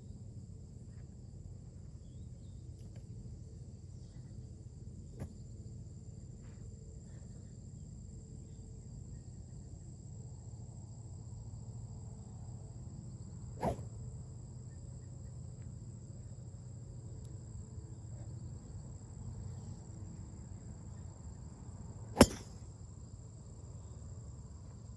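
Golf driver striking a ball off a tee: one sharp, loud crack near the end, with a softer click about halfway through. Insects trill steadily throughout.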